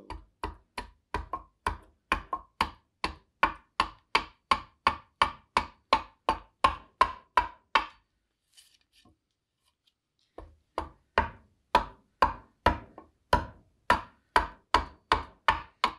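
Bowl adze chopping into green black walnut at a steady pace, about two sharp knocks a second, each with a short woody ring. The blows pause for about two and a half seconds midway, then resume at the same rate.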